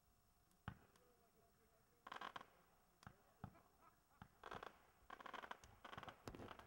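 Fireworks going off, faint and distant: a few sharp pops, and from about two seconds in four short bursts of crackling.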